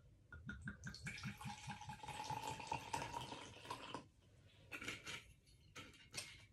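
Liqueur poured from a glass bottle into a plastic measuring cup, gurgling and splashing for about three and a half seconds before it stops. Then a few light clicks as the bottle is capped.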